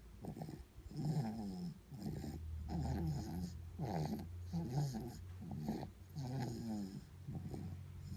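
A sleeping baby snoring and snuffling, with short voiced snorts and grunts in quick succession over a steady low hum.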